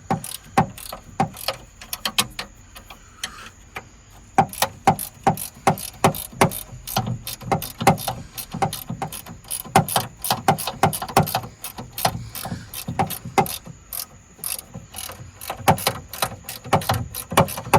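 Ratcheting box-end wrench clicking in quick runs as it loosens a 10 mm bolt on a MINI Cooper's rear window regulator, stroke after stroke with short pauses between runs.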